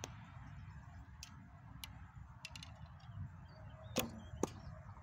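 A recurve bow is shot: a sharp snap of the string on release about four seconds in, then a second, slightly quieter knock about half a second later as the arrow strikes downrange. A few faint light ticks come before the shot.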